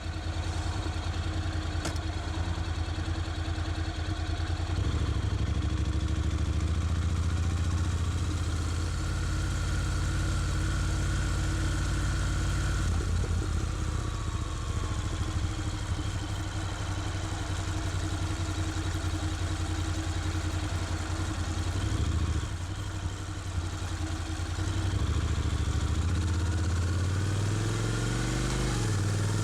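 Honda NC750X DCT's parallel-twin engine running under way, its low note stepping up and down in pitch several times as engine speed changes.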